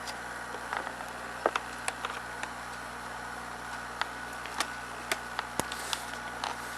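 Scattered light clicks and taps from a plastic camcorder being handled and turned over, about ten in all, over a steady background hum.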